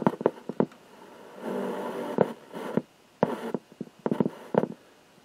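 Hiss and crackle from a single-tube super-regenerative FM receiver's loudspeaker while it is being adjusted: patches of rushing noise broken by many sharp clicks and pops.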